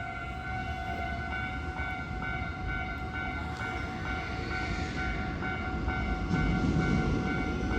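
Japanese level-crossing alarm ringing in an even repeating beat, about two strokes a second. Beneath it, the low rumble of an approaching Hankyu electric train grows louder toward the end.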